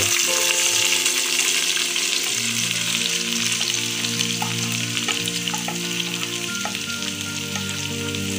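Sliced onions sizzling as they are tipped into hot coconut oil in a pot, a steady frying hiss, with a few light taps of a wooden spatula scraping them off a plate. Soft background music with held notes plays underneath.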